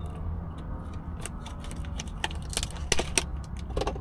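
Plastic sandwich packaging clicking and crackling as it is cut and pried open with a knife, over a low steady hum.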